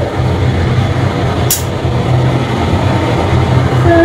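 Passenger lift car in motion: a steady low rumble, with a brief high hiss about one and a half seconds in.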